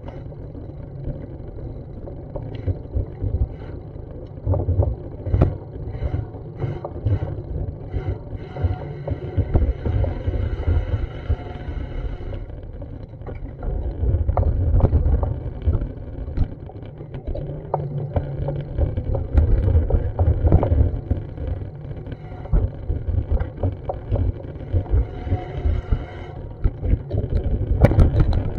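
Wind buffeting the microphone of a handheld action camera on a city street, a fluttering low rumble, with scattered light knocks and a louder stretch of street noise about ten seconds in and again near the end.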